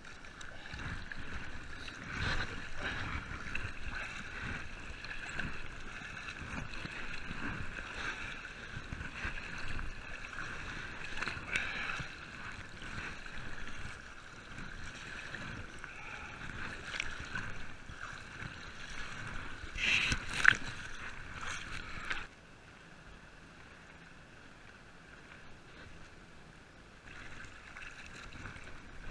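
Sea water splashing and sloshing close around a camera at the surface as swimmers in survival suits stroke and kick, with a sharp knock about twenty seconds in. A couple of seconds later the sound drops abruptly to a faint steady hiss.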